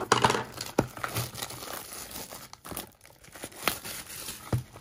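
Clear plastic shrink-wrap being torn off a cardboard trading-card box and crumpled, a continuous crinkling with a few sharp snaps.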